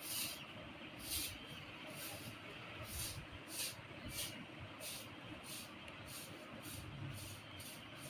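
Peahen's quick, faint hissing breaths while it is restrained, about two a second in a steady rhythm: open-mouthed panting from heat and stress.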